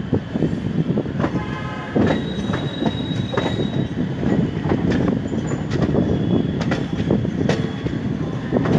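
Passenger coach running out of the station, its wheels knocking over rail joints and points above a steady rumble, with short high-pitched squeals in the first few seconds.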